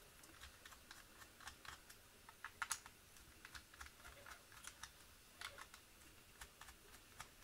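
Faint, irregular clicks and taps of hard plastic parts being handled: the shell halves and internals of a Nerf Stryfe blaster being moved and set down on a work mat.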